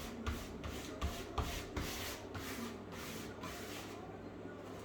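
Rhythmic rubbing strokes, about three a second, of freshly pasted wallpaper being smoothed down onto the wall by hand. The strokes stop about three and a half seconds in.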